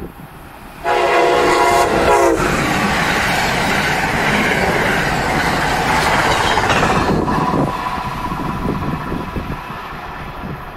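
Amtrak's Crescent passenger train sounding one short horn blast, about a second and a half long, a second in, then passing at speed with loud rushing wheel and rail noise that eases off near the end.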